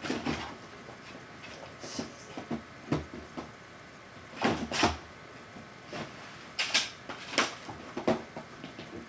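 Plastic clicks, knocks and rustling from a Chicco infant car seat being handled and fitted. A scatter of sharp knocks comes at uneven intervals, the loudest a little over four seconds in and again around seven seconds.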